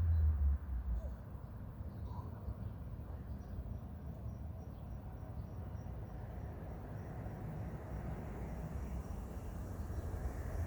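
Outdoor nature ambience: a low steady rumble, with faint high-pitched chirps repeating about three times a second through the middle and a few scattered high calls in the first seconds.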